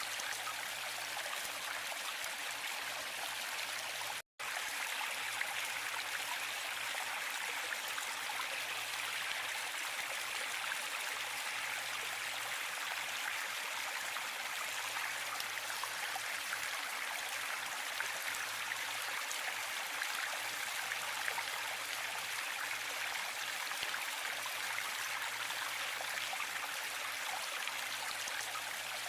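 Waterfall running steadily, a continuous even wash of falling water that is mostly high-pitched with little low rumble. The sound cuts out completely for a split second about four seconds in, then resumes unchanged.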